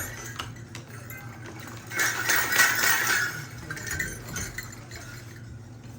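Foley props clinking and jingling with scattered sharp clicks, loudest in a jingling stretch about two to three seconds in.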